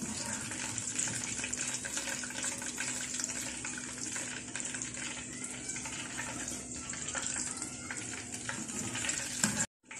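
Chhana dumplings deep-frying in hot oil: a steady sizzle of fine crackling. It breaks off briefly near the end.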